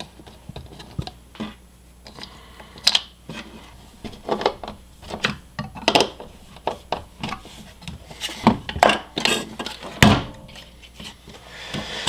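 Plastic housing of a Braun coffee grinder being handled and screwed back together: irregular clicks, knocks and light scraping as the base is turned and a screwdriver drives in its screws, with a sharper knock near the end.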